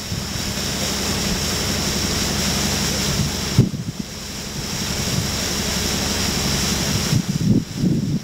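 Boat moving over the lake: a steady rush of water and wind with a low engine hum underneath, easing briefly about three and a half seconds in, then wind buffeting the microphone near the end.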